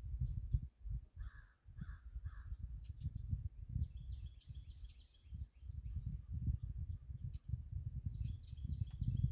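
A crow caws three times in quick succession about a second in, over a low rumble. Small birds chirp in quick high series around four seconds in and again near the end.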